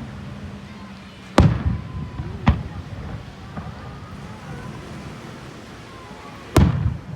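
Aerial fireworks shells bursting: three sharp bangs, about a second and a half in, at about two and a half seconds, and near the end. The first and last bangs are the loudest, with a low rumble in between.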